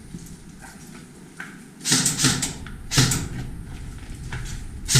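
Four sharp knocks or cracks in an enclosed room, irregularly spaced: two close together about two seconds in, another a second later, and the loudest right at the end.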